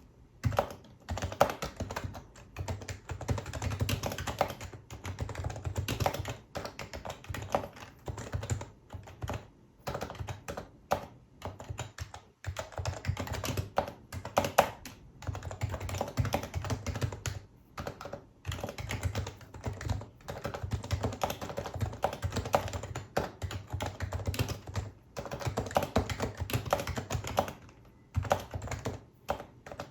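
Typing on a Happy Hacking Keyboard Professional HYBRID Type-S with electrostatic capacitive (Topre) switches: quick runs of keystrokes, broken now and then by short pauses.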